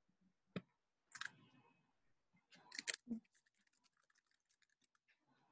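Near silence, broken by a few short faint clicks in the first three seconds and a scatter of tiny ticks after that.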